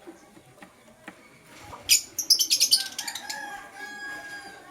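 Lovebirds calling: a loud shrill call about two seconds in, then a quick run of harsh, high chirps, followed by fainter drawn-out calls.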